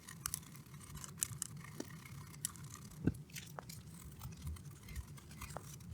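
Scrubbing a circuit board clean with isopropyl alcohol after soldering: faint, irregular scratchy scrapes and small clicks.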